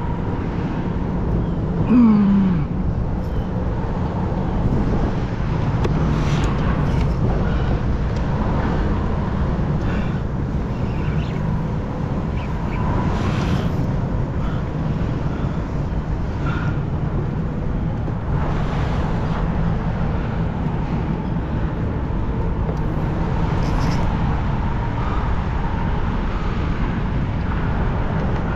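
Steady low outdoor rumble, without words, of the kind left by traffic or by wind and water noise on the microphone. About two seconds in, a brief falling tone is the loudest moment.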